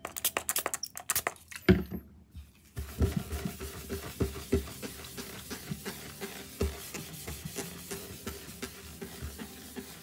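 Perfume sprayed onto a wooden tabletop in a quick run of spritzes, then a hand with a cloth rubbing the table in circles: scratchy rubbing sounds with small clicks.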